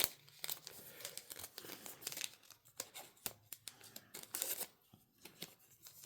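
Yu-Gi-Oh trading cards and plastic card sleeves being handled: irregular light rustling and crinkling with small clicks.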